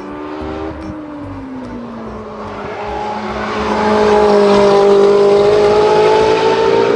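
Race car engine revving: its pitch dips, then climbs steadily as it grows louder, loudest in the second half.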